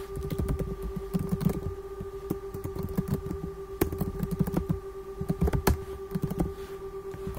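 Typing on a computer keyboard: irregular, quick keystroke clicks, over a steady low hum.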